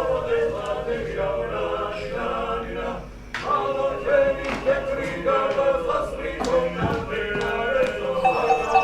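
A group of voices singing a song together in chorus, with a short break about three seconds in.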